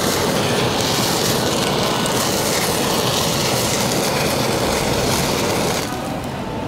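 Handheld kitchen blowtorch running with a steady hiss as its flame sears a slice of wagyu beef; the hiss drops away near the end as the flame is lifted off the meat.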